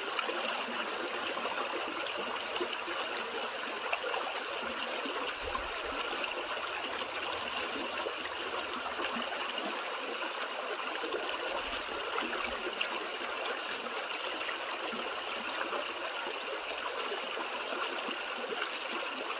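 Small creek flowing and trickling over rocks: a steady, even babble of running water.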